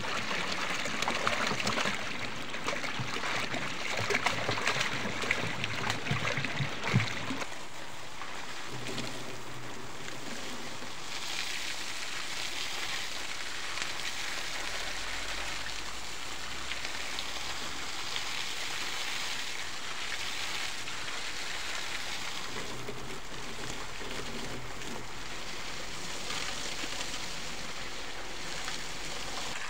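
Water glugging and splashing as it is poured from a plastic canister into a pond, for the first seven seconds or so. Then a steady rush of water from a hose jet spraying in an arc and falling onto the muddy pond bed.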